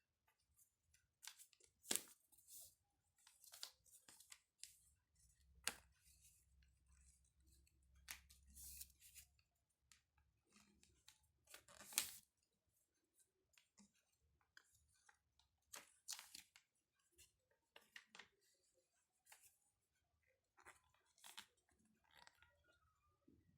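Faint scissors snips and paper rustling in scattered short bursts, with a sharper snip about two seconds in and another about twelve seconds in.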